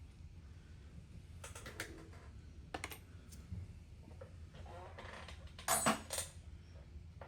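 Hand tools clicking and clinking against metal engine parts in a series of short, irregular clicks, with a louder clatter about six seconds in.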